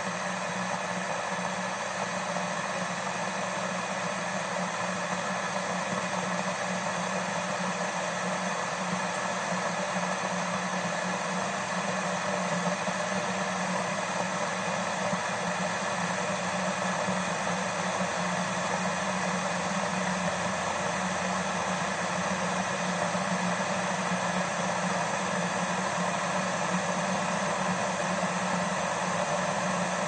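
Electric kettle heating water toward the boil: a steady rushing hiss over a low hum, growing slowly louder.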